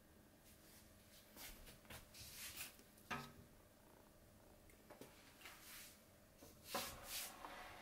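Quiet handling noises as steamed-bun dough on parchment paper is moved into a metal rice-cooker pot: brief soft rustles, a light knock about three seconds in, and more rustling near the end.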